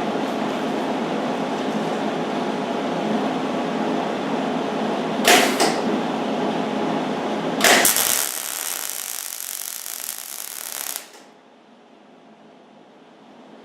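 Millermatic 90 wire-feed welding arc crackling steadily on a snowblower impeller housing, with two sharper pops about five and eight seconds in. For its last few seconds the sound turns thinner and hissier, then the arc stops abruptly about eleven seconds in.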